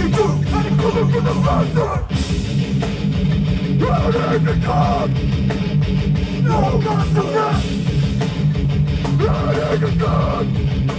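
Hardcore band playing live: loud, heavy music with electric guitar riffs.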